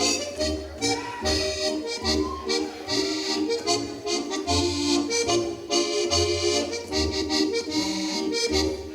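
Accordion-led Alpine folk dance music with a steady low bass beat, accompanied by short sharp clicks.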